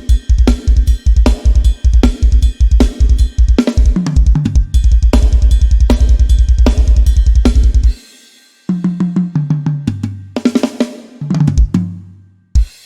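Sampled drum kit (Addictive Drums 2 in SONAR) playing a beat with snare and cymbals over a fast double-kick run, which stops about eight seconds in. A tom fill falling from high to low toms follows, then a single crash hit that rings out near the end.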